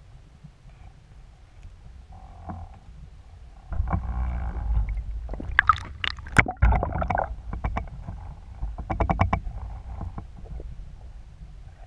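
Muffled underwater rumble. About four seconds in, water starts sloshing and splashing around a speargun-mounted camera as it breaks the surface, with several sharp splashes and drips. It goes quieter and muffled again as it dips back under, with a quick run of clicks shortly before.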